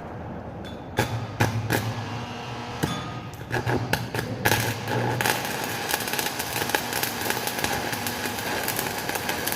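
Stick welding with a 6013 electrode on pipe: a run of sharp snaps and crackles as the arc is struck, then from about four and a half seconds in a steady, dense crackle as the arc burns continuously.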